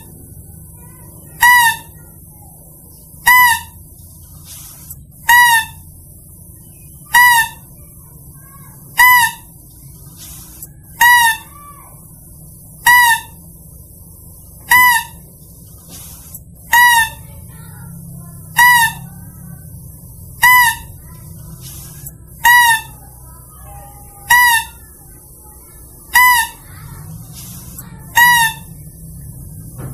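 Mouse-deer hunting lure call: a short, high, pitched call with a slight downward hook, repeated at a steady pace about every two seconds, over faint steady background noise.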